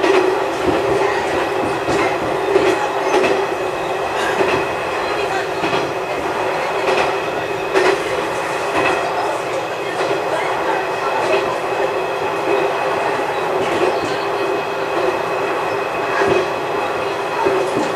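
A diesel railcar running along jointed single track, heard from inside the car: a steady engine and running hum, with irregular clicks as the wheels pass over rail joints.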